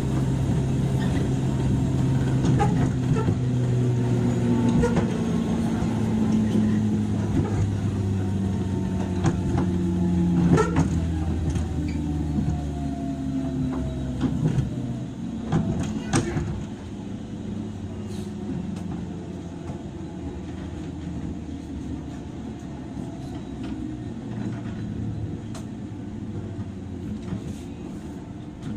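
Onboard running sound of a JR 103 series electric train, heard inside the motor car. The traction motor hum falls steadily in pitch as the train slows and fades out after about sixteen seconds. A couple of sharp clicks come along the way, and a quieter rumble of wheels on rail is left.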